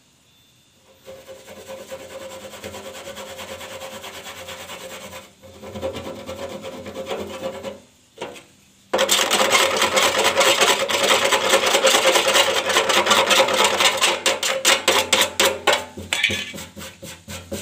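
Fingers rubbing a gritty mix of fine soil and glue over a leak patch on a sanded metal fuel tank, a rough scraping that turns much louder about nine seconds in with fast back-and-forth strokes, slowing into separate strokes near the end.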